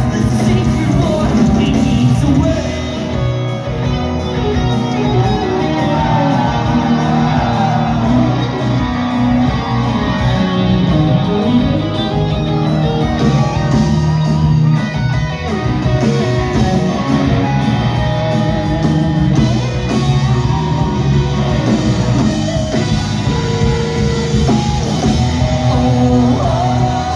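Live rock band playing a song at full volume, with electric guitars, bass and drums and a lead singer, heard from inside the crowd in a large club room.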